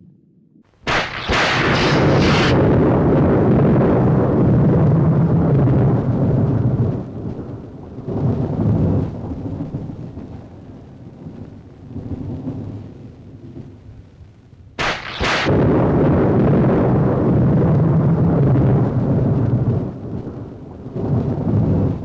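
Thunder sound effect: two close lightning strikes, each a sharp crack with a few quick snaps, followed by a long, low rolling rumble that swells and fades over several seconds. The first strike comes about a second in and the second about fifteen seconds in.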